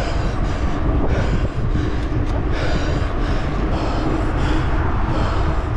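Wind rushing over the microphone of a handlebar camera on a mountain bike riding fast on asphalt, a steady rumble. Over it, the exhausted rider's hard, rhythmic breathing, about two breaths a second.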